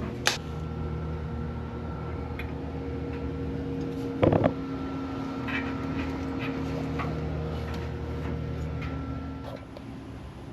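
A steady mechanical hum, dropping away near the end, with scattered light knocks and one louder metallic clank about four seconds in.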